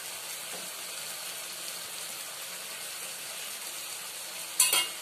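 Coconut masala paste sizzling steadily in a metal kadai as it fries. A short clatter of the metal spatula against the pan near the end.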